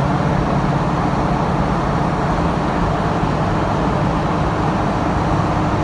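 Steady road and engine noise of a moving truck heard from inside the cab: a constant low drone with tyre hiss over it.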